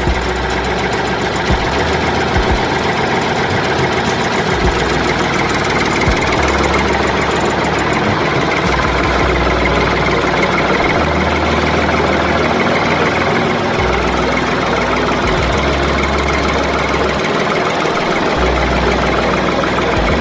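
Engine running steadily, with a deep low rumble that cuts in and out every few seconds.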